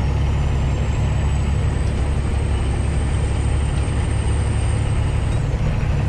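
Semi-truck engine droning steadily under way, with road noise, heard from inside the cab.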